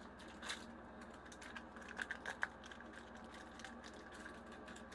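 Faint crinkling and rustling of a foil Pokémon card booster pack being torn open, in a few short bursts about half a second and two seconds in.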